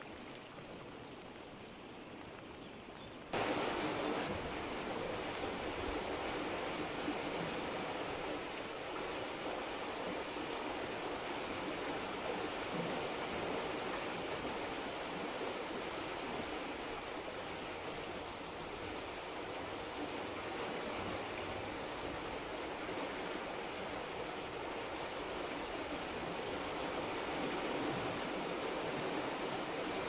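Steady rushing water that turns abruptly louder about three seconds in and then holds steady.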